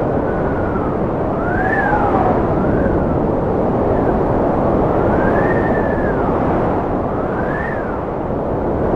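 Strong wind blowing with a steady rush, while whistling howls rise and fall in pitch about four or five times at irregular intervals.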